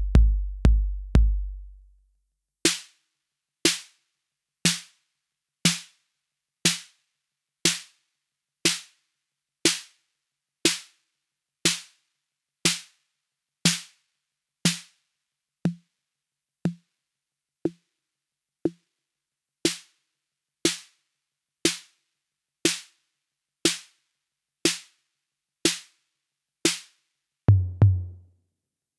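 Yocto TR-808 clone analog drum machine playing single voices. A deep bass drum with a long boom repeats a few times a second and stops about two seconds in. Then one crisp drum hit with a short tone under it sounds once a second, and near the end a lower drum hits twice.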